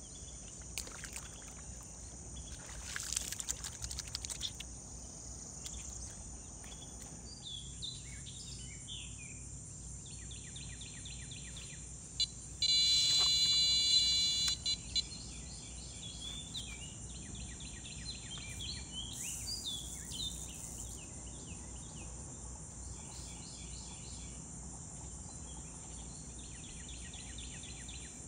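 Steady high-pitched insect chorus with birds chirping in short repeated notes. About three seconds in there is a brief noisy rustle. Near the middle a loud steady tone with several pitches lasts about a second and a half.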